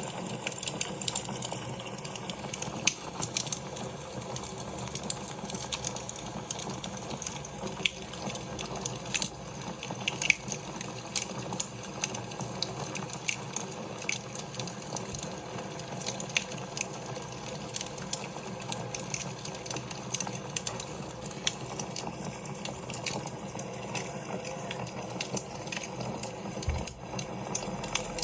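Wood fire in a fireplace crackling, with a steady hiss and many irregular sharp pops and snaps.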